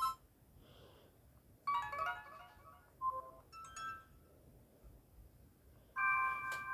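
Short electronic ringtone and notification sounds from an S-TELL C552 Android phone's speaker. A brief click at the start, then a quick run of chime notes, two short blips, and near the end a held chord of steady tones begins.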